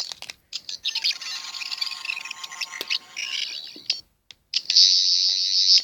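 13th Doctor sonic screwdriver toy playing its electronic diagnostic sound effect from its small speaker: a high, warbling trill. It breaks off briefly a little after four seconds, then comes back louder.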